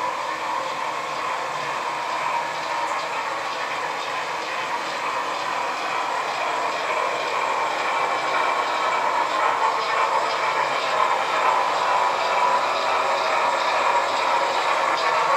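HO-scale model freight train running on the layout's track, a steady rolling rumble that grows louder as the train approaches.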